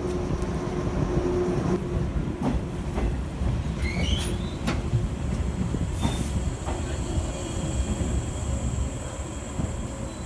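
Red former-JNR express-type electric train with a Kuha 455 cab car pulling slowly into the platform: a steady low rumble with clicks from the wheels over rail joints. There are short rising wheel squeals about four seconds in and a brief hiss about six seconds in.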